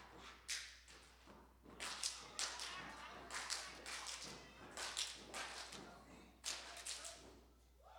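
Irregular sharp slaps and thumps, roughly one or two a second, in a large room.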